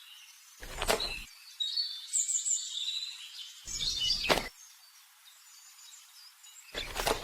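Faint high bird chirps, with three short sharp clicks or taps about one, four and seven seconds in.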